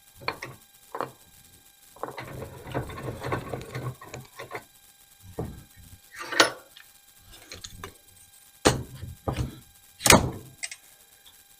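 Metal clicks and scraping, then two sharp clacks near the end, as a newly assembled AR-15's charging handle and bolt carrier group are worked by hand. The bolt carrier is dry and unlubricated, and the action runs a little tight.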